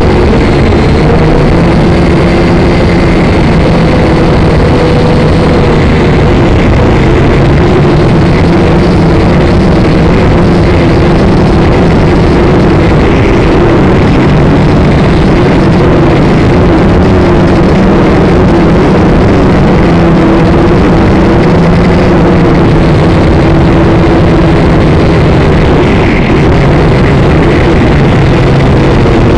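Syma X5SC quadcopter's four small brushed motors and propellers running steadily in flight, loud and close on its onboard camera's microphone, the pitch wavering slightly as the throttle shifts.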